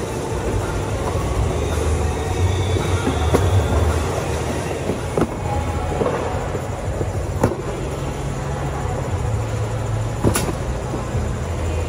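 Steady low rumble of a running package conveyor and warehouse machinery, with a few sharp knocks as cardboard boxes are tossed onto the conveyor and metal cage carts are handled.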